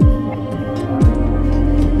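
Ambient background music: a sustained chord with a deep kick drum about once a second.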